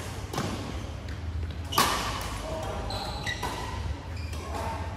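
Badminton rackets striking a shuttlecock: two sharp hits, about a third of a second in and again just before the two-second mark, the second the louder, ringing in a large hall. Voices follow.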